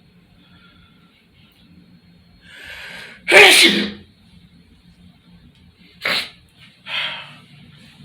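A man sneezes once, loudly, about three seconds in, after a drawn-in breath. Two shorter breathy sounds follow near the end.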